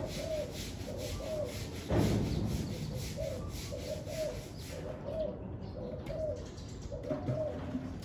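Spotted doves cooing over and over in short, closely spaced phrases. Wind buffets the microphone underneath as a low rumble, with a strong gust about two seconds in.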